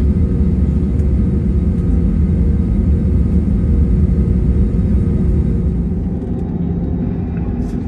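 Cabin noise in an Airbus A320neo taxiing, heard from a window seat: a steady low rumble with the hum of its CFM LEAP-1A engines at taxi power. It gets a little quieter in the last couple of seconds.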